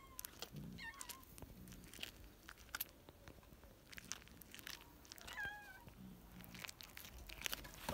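Cat chewing and crunching on a pigeon carcass: irregular sharp crunches and clicks from its teeth on bone and feathers. Two short, high, warbling calls come through, about a second in and about five seconds in.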